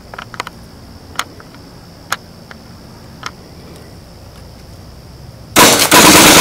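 Light clicks of handlebar switches and a push button being handled, over a steady high whine; near the end, as the handlebar fire button is pressed, a sudden very loud burst of under a second from the motorcycle's mounted machine gun.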